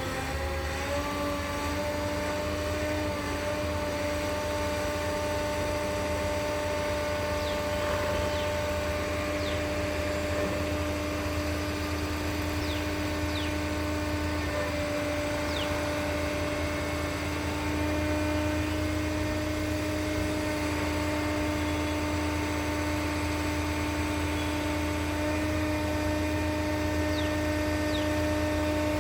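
Concrete pump's engine running steadily, its pitch rising slightly at the very start and then holding even, over a low rumble.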